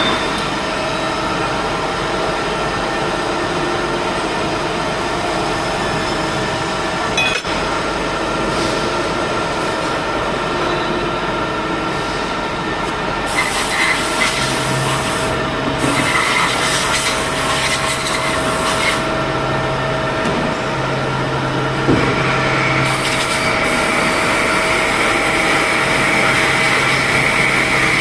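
CNC vertical machining centre running: a steady machine hum with several steady tones. From about halfway, stretches of hissing noise come and go, and a high whine joins over the last few seconds.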